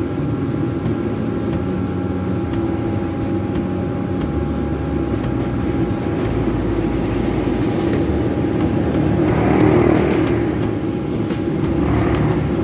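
Steady low rumble with a faint hum above it, like a motor running, and faint high ticks every second or so; it swells briefly about nine to ten seconds in.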